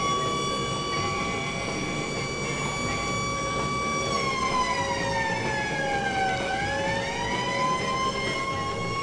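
Police car siren holding one steady pitch, then sliding down in pitch about four seconds in and climbing back up to the same pitch, over a steady rumble.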